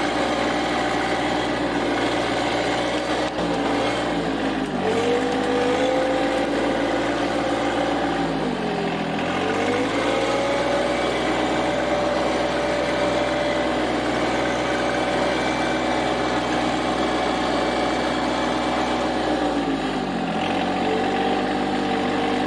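John Deere 2025R compact tractor's three-cylinder diesel engine running, its speed dipping briefly and then rising to a higher steady pitch three times, about 4, 9 and 20 seconds in. The rises are the mechanical auto throttle raising engine speed as the loader is worked, with no hand on the throttle.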